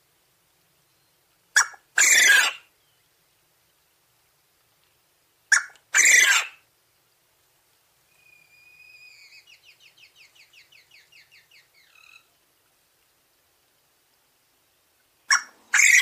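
Coturnix quail crowing three times. Each crow is a short sharp note followed at once by a longer, louder one. Between the second and third crows comes a softer call, a held whistle that breaks into a rapid pulsing trill.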